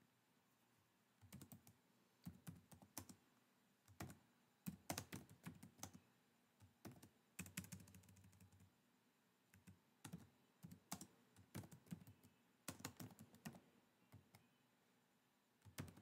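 Typing on a computer keyboard: irregular runs of keystroke clicks with short pauses between them, starting about a second in.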